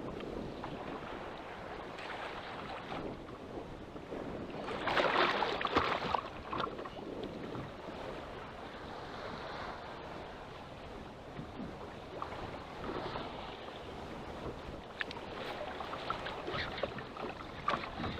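Wind on the microphone and choppy waves washing against a small boat, with a louder rush of water and wind about five seconds in.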